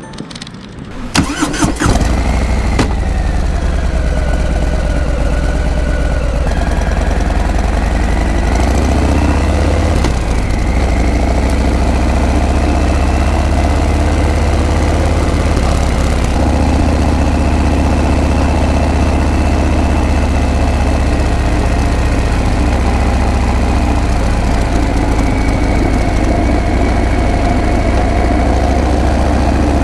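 Harley-Davidson Breakout's V-twin engine started about a second in, catching at once and then idling steadily through its exhaust.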